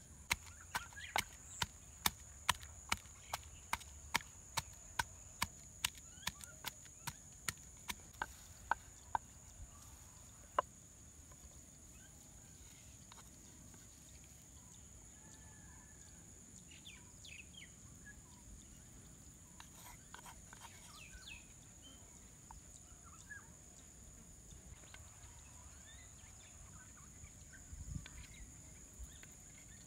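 Sharp snapping clicks, about two a second for the first ten seconds, as curry leaves are snapped off by hand close to the microphone, then a few faint scattered ticks. A steady high insect drone runs throughout.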